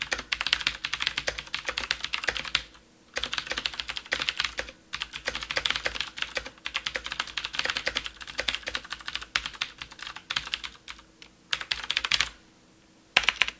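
Typing a sentence on a Das Keyboard Ultimate mechanical keyboard with clicky Cherry MX Blue switches: rapid runs of sharp key clicks with short pauses between words, stopping about a second before the end apart from a last brief flurry.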